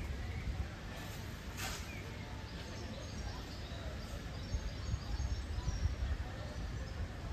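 Outdoor ambience: a steady low rumble, typical of wind on the microphone, with a few faint bird chirps about four to six seconds in.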